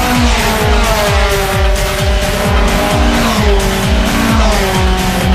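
Electronic-style music with a fast, steady drum beat and held synth notes that step in pitch.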